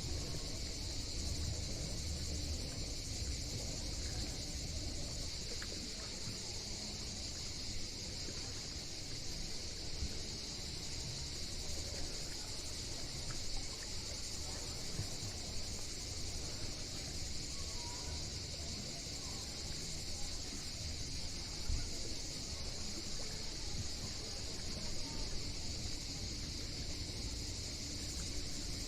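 Steady, unbroken high-pitched insect chorus, with a low, uneven rumble underneath.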